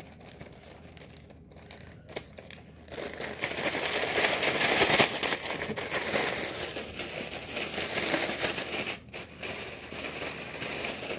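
A plastic zip-top bag of crushed ramen noodles, chips and seasoning being shaken hard, crinkling and rattling. The shaking starts about three seconds in and goes on with a brief pause around nine seconds in.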